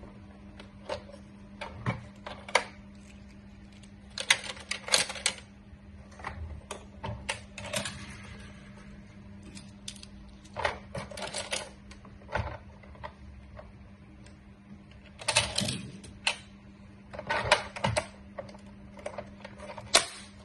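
Plastic toy car-carrier truck and die-cast toy cars being handled: scattered clicks and short clattering runs of plastic and metal clacks as the truck's ramp and the cars are moved.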